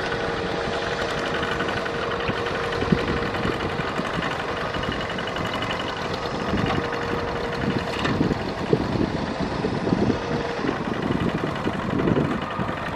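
A two-wheel walking tractor's single-cylinder diesel engine runs steadily under load while its iron cage wheels churn through flooded paddy mud. In the second half there are irregular wet splashes and knocks from the wheels, with one sharp click about eight seconds in.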